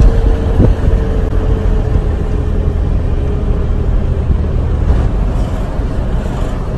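Car on the move, heard from inside the cabin: steady low rumble of road and wind noise. A faint hum slowly drops in pitch over the first few seconds, and there is a single light knock about half a second in.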